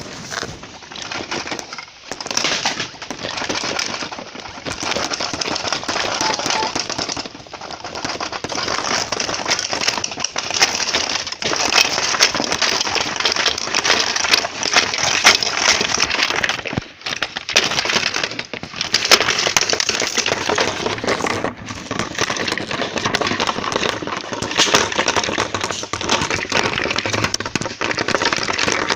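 Earthquake sound effect: a continuous clatter of shaking objects and breaking glass, surging and easing with a few brief lulls.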